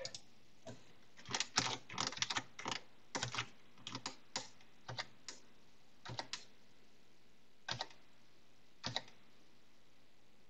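Computer keyboard keys being pressed: a quick irregular run of key clicks in the first few seconds, then single presses or pairs spaced a second or more apart.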